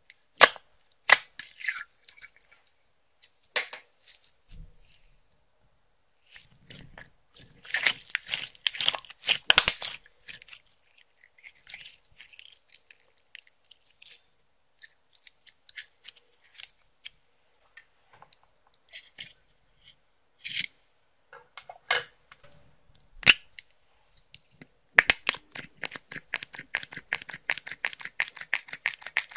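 Hands working clear slime with makeup and glitter mixed in: scattered sticky clicks, crunches and crinkles, then a fast, even run of clicks near the end.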